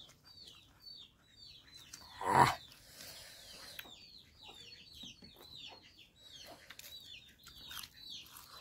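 Chicks peeping: a steady run of short, high, falling peeps, about two or three a second. A brief louder noise breaks in about two seconds in.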